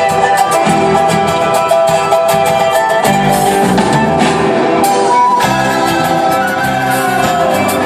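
A live band playing an upbeat piece with guitars, drums and keyboard, at a steady beat.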